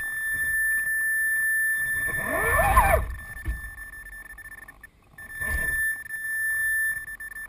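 Electric RC crawler's motor and speed controller whining: a steady high tone while the throttle is held, a rising whir as the motor spins up just before three seconds in, then the tone cuts out for about two seconds and comes back. A short knock comes around five and a half seconds.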